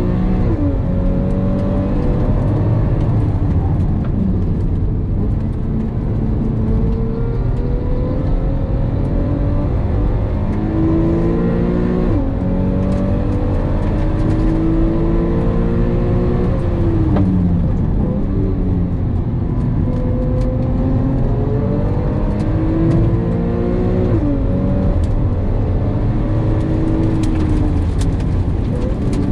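Porsche 911 (997) flat-six engine heard from inside the cabin at racing pace on a track: the revs climb in long pulls through the gears and fall steeply under braking and downshifts, a little before the middle, past the middle and again near the end, over steady tyre and road noise.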